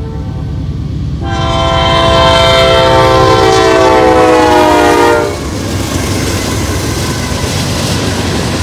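Norfolk Southern freight locomotive's air horn sounding a multi-note chord for a grade crossing. It gets louder about a second in, dips slightly in pitch as the locomotive passes, and cuts off about five seconds in. Then comes the steady rolling rumble and rattle of the freight cars going by.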